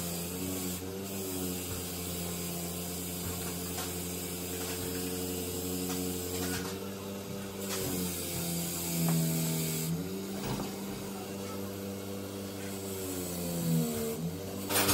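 Bench grinder motor running with a steady hum whose pitch dips and recovers a few times. Scraping noise from cleaning a turbocharger wheel by hand at the wire wheel comes and goes.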